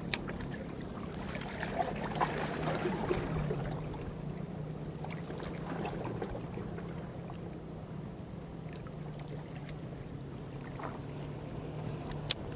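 Small waves washing against breakwater rocks, swelling for a few seconds near the start, over a steady low hum. A sharp click at the start and another near the end.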